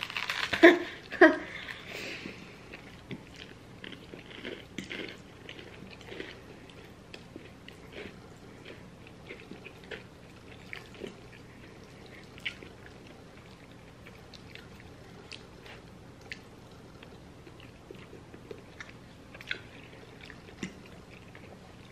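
Close-miked eating: chewing and biting of pasta and garlic bread, with soft wet mouth clicks and smacks scattered throughout. The loudest sounds come in the first two seconds, as a slice of garlic bread is bitten.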